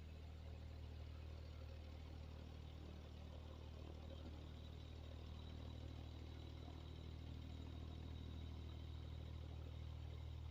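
A blower running steadily with a low, even hum, slowly getting a little louder toward the end.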